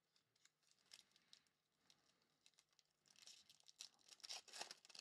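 Faint crinkling and tearing of a foil trading-card pack being ripped open, starting about three seconds in after a few light ticks.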